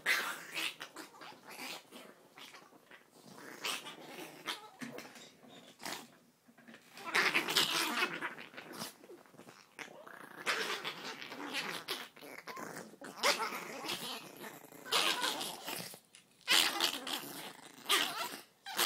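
Two Chihuahuas play-fighting, growling in repeated bouts, with blankets rustling under them.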